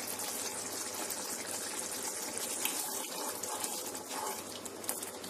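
Ground tomato-onion masala paste sizzling and bubbling steadily in hot oil in a frying pan.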